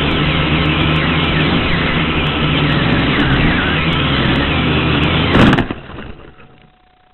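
XK X250 quadcopter's motors and propellers whirring, their whine wavering up and down in pitch. About five and a half seconds in comes a brief loud burst, then the sound dies away to a faint hum.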